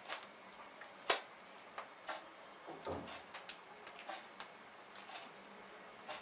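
Faint, scattered clicks and crinkles from a piping bag being squeezed as pastry cream is piped, with one sharper click about a second in.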